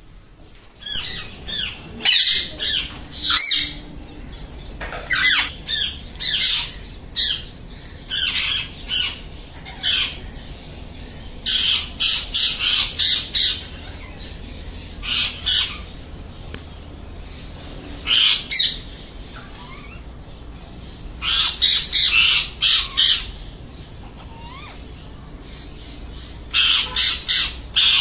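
Alexandrine parakeets calling in quick bursts of several calls, a new burst every few seconds.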